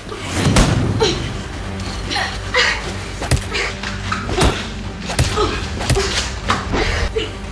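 Hand-to-hand fight sounds: a string of punches and body hits, about ten thuds and slaps spaced roughly half a second to a second apart, with short grunts of effort between them.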